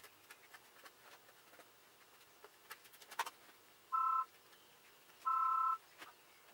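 Two electronic beeps, each two tones sounding together: a short one about four seconds in and a longer one about a second later. Under them, faint scraping and ticking of a notched spatula spreading epoxy on fiberboard, with a brief cluster of clicks just before the first beep.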